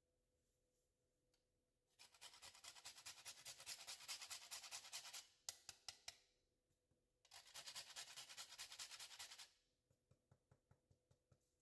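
A whole nutmeg being rubbed on a fine handheld grater: two spells of quick, faint rasping strokes a few seconds each, with a short pause between.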